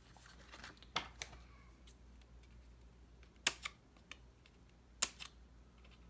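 Several short, sharp clicks, some in pairs, over faint paper handling, as loose planner insert pages are handled and trimmed with scissors.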